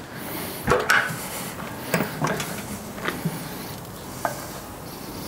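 A few light knocks and clicks from handling at an open kamado grill, the sharpest about a second in, over a faint steady sizzle of bacon-wrapped turkey breast on the hot grate.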